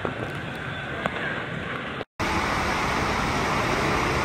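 Water park noise: in the first part, pool water splashing with a couple of sharp knocks; after a momentary dropout about two seconds in, a louder steady rush of water running down open water slides.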